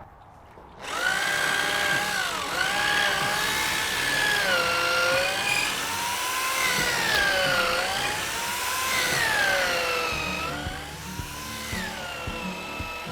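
Power drill boring into wood, its motor whine rising and falling in pitch as the bit loads and frees, stopping about ten seconds in.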